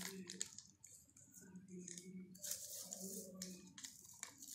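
Faint rustling and crinkling of a sheet of paper being folded and its creases pressed down by hand, in short scrapes loudest about halfway through.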